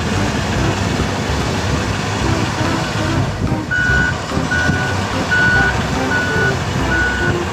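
Heavy diesel wheel dozer running and working under load, with a reversing alarm beeping at an even pace, about one beep every three-quarters of a second, from about halfway through.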